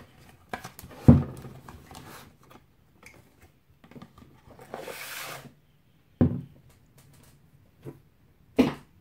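A cardboard candle gift box being opened and handled on a table: a few sharp knocks and thumps, with a sliding, scraping rustle about five seconds in as the glass candle jar is drawn out.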